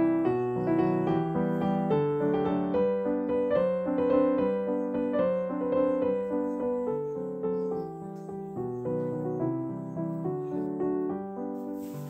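Background piano music: a melody of single struck notes over chords, each note fading after it is played.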